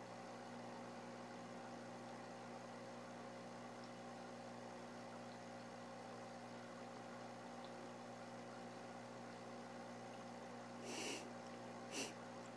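A steady electrical hum with several fixed tones. Near the end come two brief rustles about a second apart, as the handheld camera is moved.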